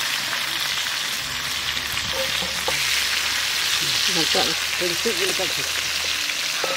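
Pieces of fried stingray sizzling steadily in hot mustard oil in a wok as the done pieces are lifted out with a spatula.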